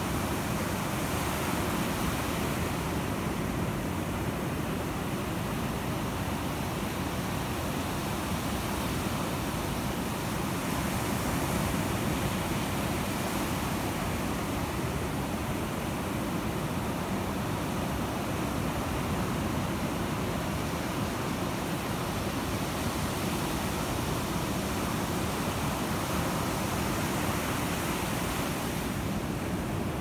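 Gulf of Mexico surf: small waves breaking offshore and washing up a sandy beach in a steady rush of water that swells and eases every several seconds.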